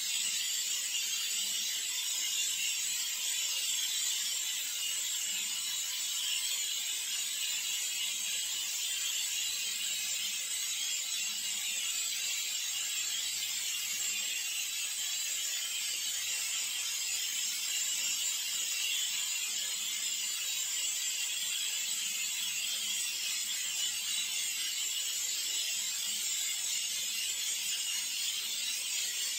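A steady high hiss with an even, unchanging level.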